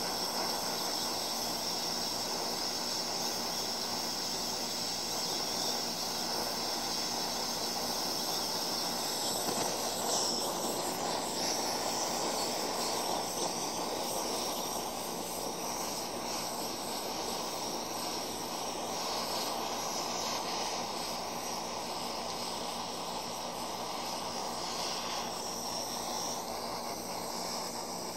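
Blow torch burning with a steady hiss, its flame playing on a steel ball.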